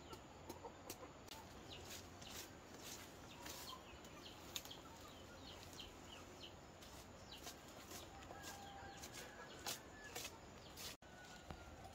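Chickens clucking faintly, with scattered sharp clicks throughout and a momentary dropout near the end.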